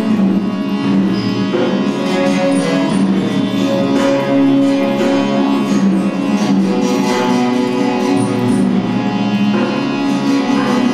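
Instrumental music with a plucked string instrument playing a melody over a steady drone.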